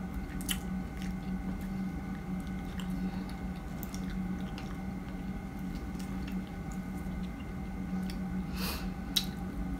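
Chewing and biting fresh strawberries close to the microphone: scattered wet mouth clicks and smacks, one longer one near the end, over a steady low hum.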